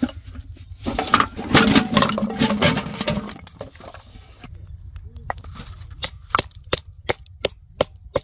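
Plastic bottles clattering out of an aluminium pot onto grass, followed by about eight sharp knocks, nearly three a second, as a freshwater snail's shell is cracked open on a wooden block.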